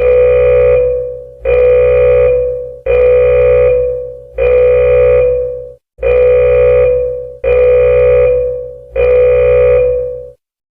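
Emergency alert alarm tone: seven long beeps about one every second and a half, each held at one steady pitch with a rich, buzzy timbre, fading before the next starts.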